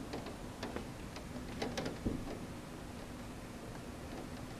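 Irregular ticks of storm raindrops striking a window pane, a few close together in the first two seconds, over a steady background hiss.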